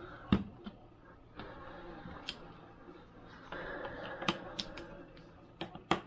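Small hard parts being handled during dishwasher door repair: scattered sharp clicks and taps, with two stretches of rustling in between. The loudest click comes about a third of a second in, and a quick run of clicks comes near the end.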